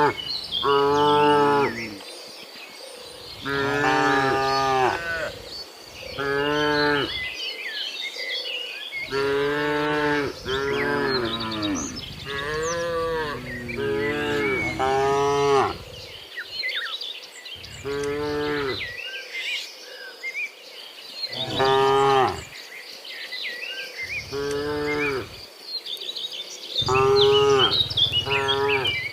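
Cattle mooing: a herd calling over and over, about a dozen long moos, several voices overlapping at times, with short gaps between them.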